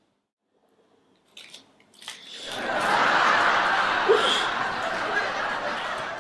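Audience laughter from a laugh track, swelling in about two and a half seconds in and going on to the end, after a few faint clicks.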